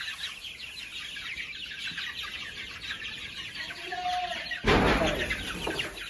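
A flock of young chickens peeping and cheeping steadily, with one lower call about four seconds in. About four and a half seconds in comes a loud scraping rush, lasting about a second, as the push broom shoves straw across the coop floor.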